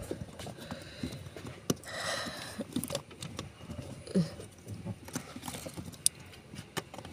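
Irregular light clicks and knocks from hands handling parts under a car seat, with a short rustle about two seconds in.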